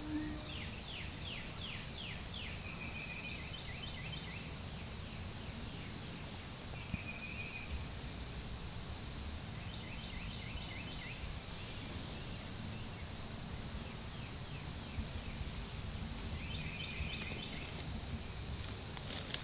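Spring woodland ambience: songbirds sing quick series of descending notes several times over a steady high insect drone, with a low wind rumble underneath.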